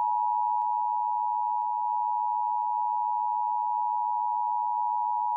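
Emergency Alert System two-tone attention signal: two close tones (853 and 960 Hz) sounding together as one steady, unbroken harsh tone that announces an incoming emergency alert.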